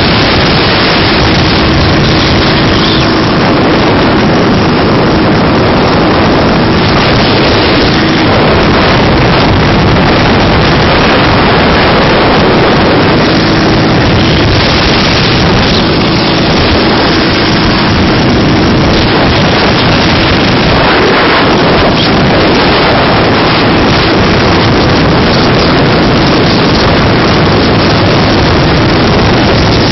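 Dnepr sidecar motorcycle's flat-twin engine running steadily at cruising speed, heavily buffeted by wind on the microphone. The sound is loud and steady, with no shifts or revs.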